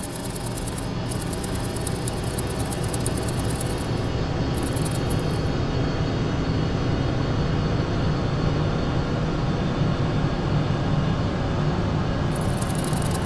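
Horror-film sound design: a low rumbling drone that swells slowly and steadily, with bursts of crackling static in the first few seconds and again near the end.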